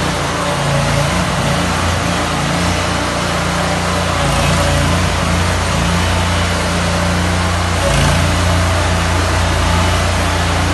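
Ride-on floor scraper, a propane-powered Bartell T2500 Terminator, running steadily under load while its front blade scrapes and peels carpet up off a concrete floor.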